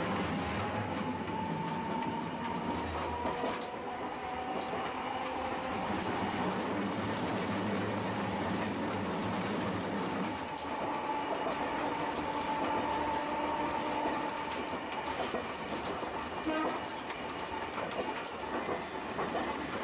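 Street tram running along its track, heard from inside the car: a motor whine that rises slowly in pitch as it gathers speed, over steady wheel-and-rail rumble with occasional clicks and clanks from the track.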